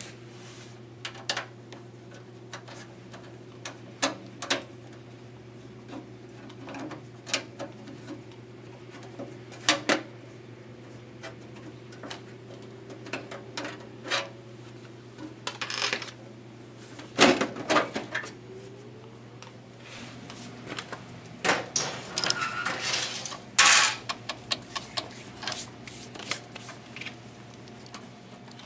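A small screwdriver clicking and scraping on the screws of an HP desktop's metal case, then louder metal clunks and rattles as the case panel is taken off, over a steady low hum.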